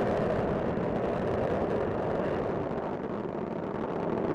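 Space Shuttle Discovery's solid rocket boosters and main engines during ascent: a steady, dense rumble of rocket exhaust that dips a little about three seconds in.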